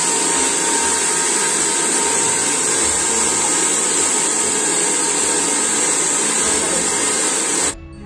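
Handheld hair dryer blowing at full power, a steady loud rush of air with a high hiss, switched off suddenly near the end.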